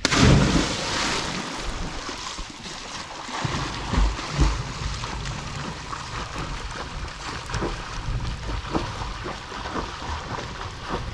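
People jumping into lake water: a big splash at the start, then steady splashing and churning water, with a couple of low thumps about four seconds in.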